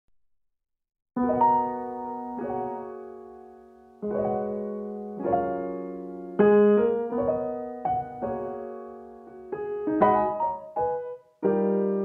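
Piano music: chords and notes struck and left to ring and fade, beginning about a second in.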